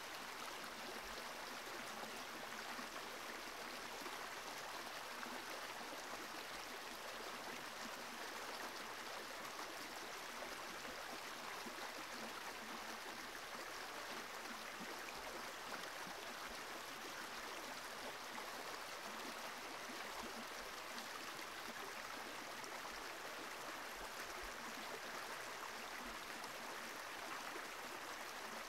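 Steady, even hiss of flowing water, with no distinct events.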